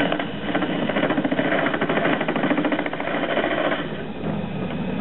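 Homemade Gingery metal lathe turning a steel bar at about 800 rpm, the cutting tool taking a light finishing cut, with a fast, even rattle that eases about four seconds in.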